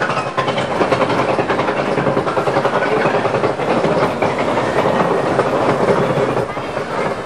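Mine train roller coaster climbing its chain lift hill: a dense, rapid clatter from the lift chain and the anti-rollback ratchet, over a steady low hum from the chain drive that stops about six and a half seconds in as the train crests the hill.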